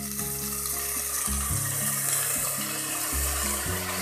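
Freshly washed rice sizzling as it hits hot ghee and oil with whole spices in an aluminium pot, a steady frying hiss, under background music.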